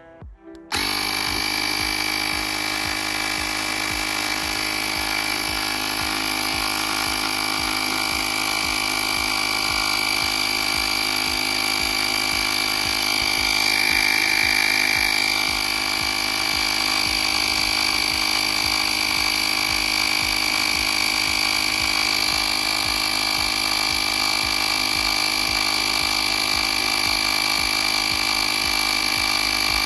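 Cycplus A7 portable tyre inflator's small electric air compressor switching on about a second in and running steadily with a high whine, pumping up a flat bicycle tyre.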